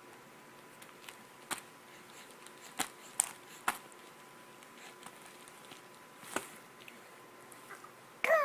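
A few faint, sharp clicks scattered over several seconds, then right at the end a loud, wavering vocal cry bursts in.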